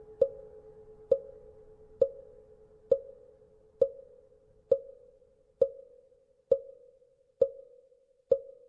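Wooden fish (mõ) struck at a slow, even pace, about one stroke a second, ten strokes in all, each with a short hollow ring. A faint temple-bell hum dies away over the first few seconds.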